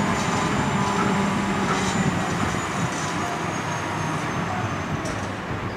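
Engine of heavy lifting equipment running steadily: a low drone with a thin high whine above it.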